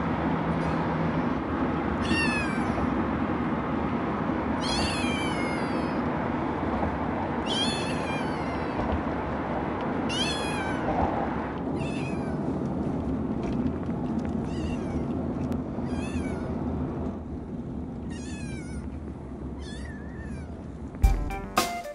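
Calico kitten meowing and crying from inside a pet carrier: about ten high calls, each sliding down in pitch, a second or three apart. It sounds over the steady rumble of a car ride. Drum-backed music cuts in near the end.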